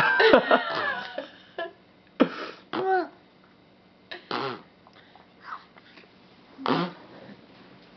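A baby blowing raspberries, making mouth 'fart' noises: about five short, wet, sputtering blasts, the first and longest right at the start.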